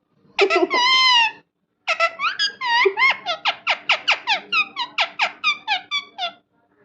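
Parrot calling: one drawn-out squawk, then a quick run of short squeaky chirps, about four a second, that stops near the end.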